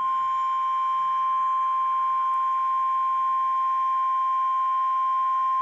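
Emergency alert tone: the steady single-pitch 1050 Hz warning alarm tone of NOAA Weather Radio, held without a break, which signals that a severe weather warning message is about to follow.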